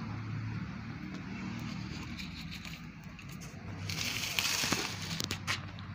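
Steady low rumble of a vehicle engine in the background. About four seconds in comes a brief burst of rustling with a few sharp clicks, as plastic cups and leaves are handled.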